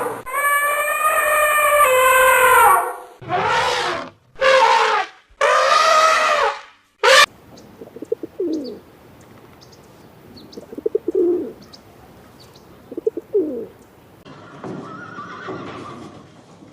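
A run of different animal calls: loud pitched calls with falling tones for about the first three seconds, then four more loud calls in quick succession. About eight seconds in, pigeons coo softly three times, a few seconds apart, and a faint noisy rustle starts near the end.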